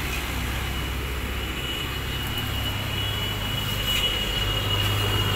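Steady low hum of a running vehicle with a thin high-pitched whine over it through most of the stretch.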